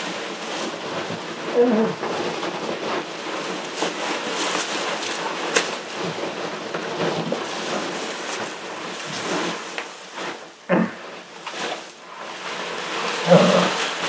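Polystyrene packing peanuts rustling and squeaking continuously as someone rummages through a box full of them, with a few short muffled grunts.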